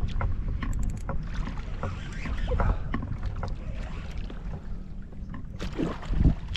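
Wind rumbling on the microphone over water lapping at a kayak, while a fishing reel is cranked against a hooked fish on a bent rod. Scattered sharp clicks, with a quick run of them about a second in.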